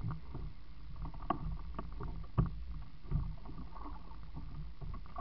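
Water splashing and a few sharp knocks against a small open boat as a hooked sixgill shark thrashes at the surface beside the hull, over a steady low rumble.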